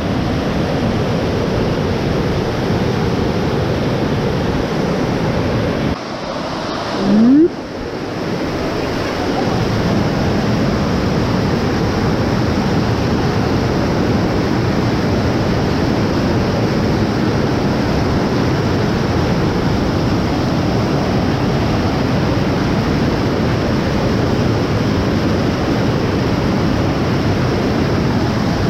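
Steady rush of fast-flowing floodwater at a river sluice gate, with wind buffeting the microphone. About seven seconds in the rush drops away for a moment and a short rising tone is heard.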